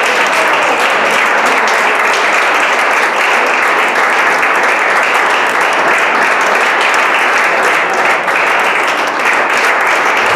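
A small crowd of people clapping their hands in steady, continuous applause.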